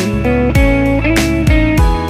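Background music with a steady drum beat under held, sustained notes.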